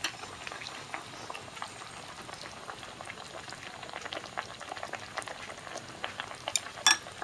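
Grilled tofu and meat simmering in sukiyaki broth in a pan, the broth bubbling and crackling steadily. One sharp click near the end.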